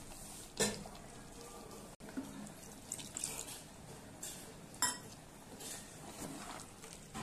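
A metal spoon stirring thick cauliflower, mutton and potato curry in a metal pressure cooker pot: short scraping strokes through the food, with two sharp clinks of the spoon against the pot about four seconds apart.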